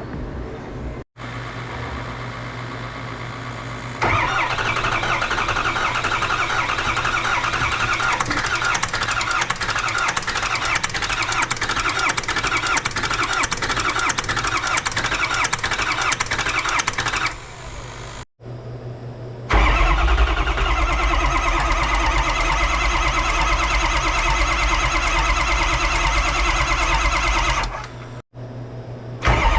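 Ford 6.0 L Power Stroke V8 turbo-diesel starting and running after the cylinder head work, in several stretches that break off sharply about 1, 18 and 28 seconds in.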